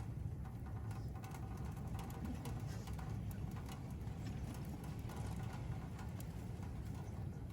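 Wood fire burning in a wood stove: frequent small crackles and ticks over a steady low rumble.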